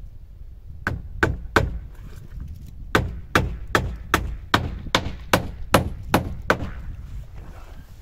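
Hammer driving nails into wooden cladding boards: three quick blows, a pause, then a steady run of about ten blows at roughly two and a half a second.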